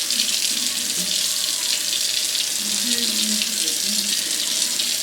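Tap water running steadily at a sink, rinsing hair relaxer out of hair.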